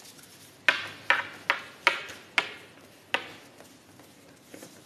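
Baralho cigano cards being handled on a tabletop: six sharp card slaps in the first three seconds or so, a bit under half a second apart, each fading quickly.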